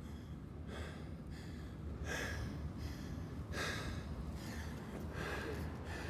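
A man breathing heavily in and out, four breaths about a second and a half apart, over a low steady rumble.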